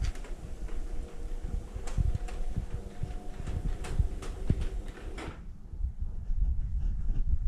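Irregular knocks and clicks over a low rumble, like handling or door-type clatter.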